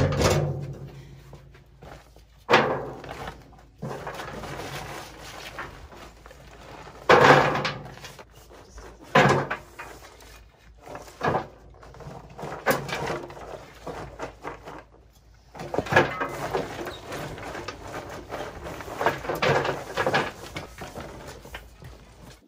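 Bark mulch being unloaded from a pickup bed: a shovel scrapes through the bark and along the bed, with irregular knocks and thumps. The loudest come at the start and about seven seconds in, and a busy run of knocks follows about sixteen seconds in.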